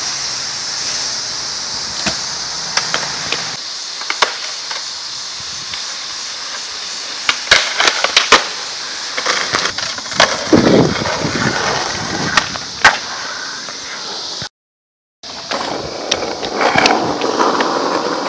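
Skateboard and stunt scooter tricks on concrete and asphalt: wheels rolling, with sharp clacks and slaps of decks hitting and landing on the pavement, over a steady hiss. The sound cuts out briefly about three-quarters of the way in.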